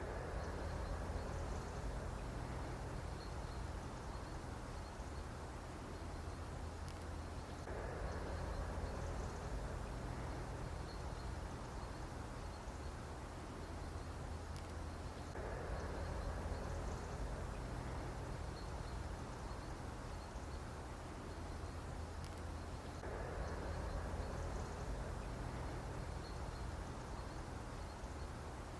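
Mosquito buzzing over a steady low hum, swelling about every eight seconds as the same short recording repeats on a loop.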